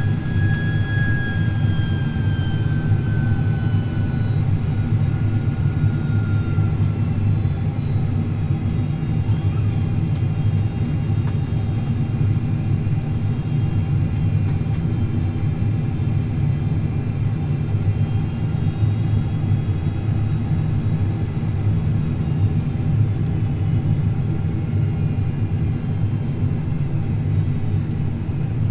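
Steady jet airliner cabin noise inside a Boeing 767-400ER on final approach: a low rumble from its engines and airflow with several steady whining tones over it. A high whine falls in pitch over the first several seconds.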